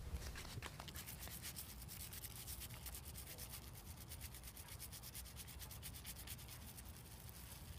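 Small brush scrubbing a bicycle rear derailleur's degreaser-soaked pulley wheels, a faint run of rapid back-and-forth strokes that works the grime off the jockey wheels.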